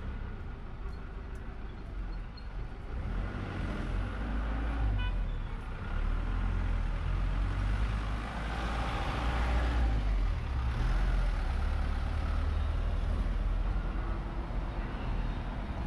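Street traffic: a steady low rumble, with a passing vehicle that swells to its loudest about eight to ten seconds in.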